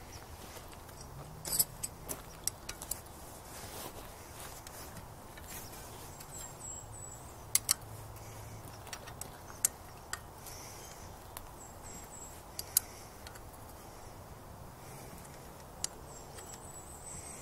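A steel wrench clinking against a lower-unit bolt and the aluminium housing of a Johnson 9.5 HP outboard as the bolt is worked loose: sharp metallic clicks, a quick cluster of several in the first few seconds, then single clicks every few seconds.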